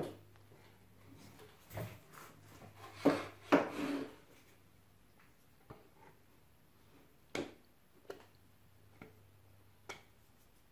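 Small wooden spreader scraping and tapping along a wooden board as glue is spread on it, with light wooden knocks; the loudest, roughest scraping comes about three to four seconds in, then a few separate sharp clicks.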